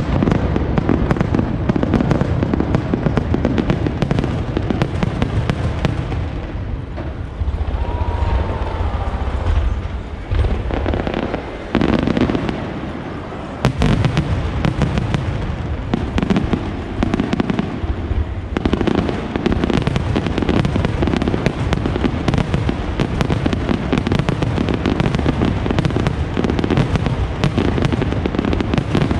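Finale barrage of aerial firework shells bursting: rapid, near-continuous booms and crackle. Between about seven and thirteen seconds in the crackle thins and deeper booms dominate, then a sharp loud crack brings back the dense barrage.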